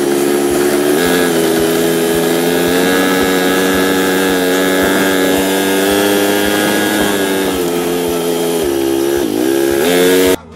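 Side-by-side UTV engine running as it drives along a trail; the engine note climbs about a second in, dips briefly near the end, then picks up again.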